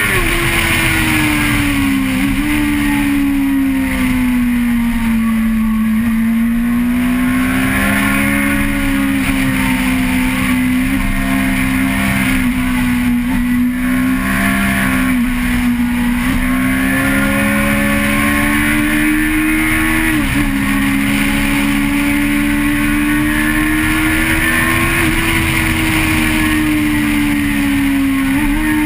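Vehicle engine heard onboard, running steadily under load. Its pitch drifts slowly up and down, with a few brief sharp dips and recoveries.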